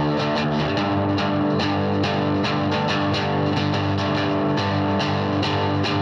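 Music: a guitar-led track with a steady beat.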